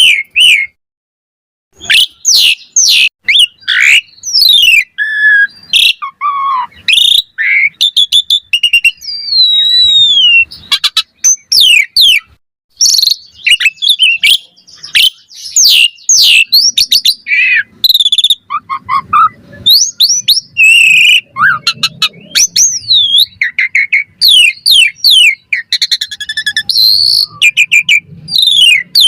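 Asian pied starling singing in full voice: a long, busy run of rapid whistles, chirps and sliding notes with a short pause about a second in.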